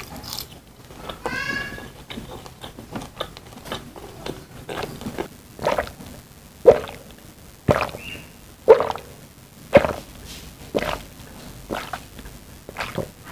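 Close-miked chewing of crispy fried chicken skin, with wet mouth clicks. From about five seconds in, water is gulped down in steady swallows, about one a second.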